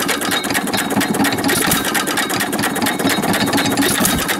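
A 1925 Baker Monitor 1¼ hp hit-and-miss pump jack engine running warm, with a fast, even clatter of sharp mechanical clicks.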